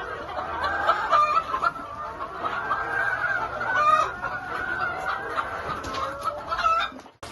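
A large flock of chickens clucking, many birds calling over one another in a continuous din. It cuts off abruptly near the end.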